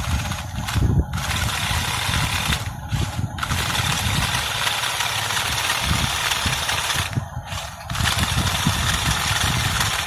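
A toy RC stunt car's electric motors and gears whirring as its wheels spin on dirt, straining against a toy bulldozer it is pushing. The whir drops out briefly three times as the throttle is let off.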